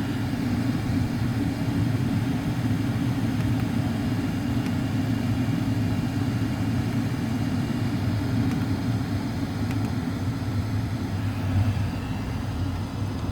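WIPPRO diesel air heater running: a steady low combustion drone with fan noise, unchanging in level.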